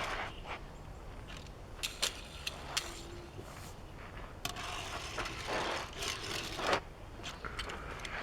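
Small die-cast Hot Wheels toy car handled and pushed across a surface: a few light clicks, then a couple of seconds of rough rolling and scraping from its small wheels, stopping abruptly.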